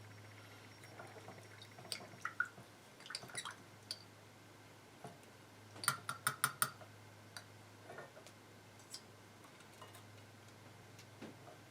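Light metallic clinks and taps of small silver pieces and hand tools being handled on a jeweller's bench, with a quick run of about five clinks around six seconds in. A low steady hum runs underneath.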